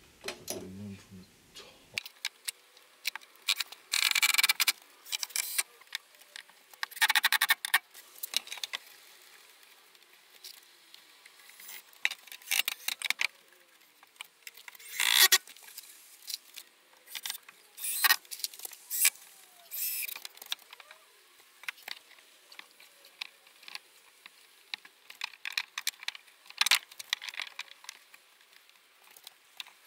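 Irregular clicks, taps and short scraping rattles of softwood battens and clamps being handled and fitted into a cabinet frame, with several louder bursts of knocking and scraping spread through the stretch.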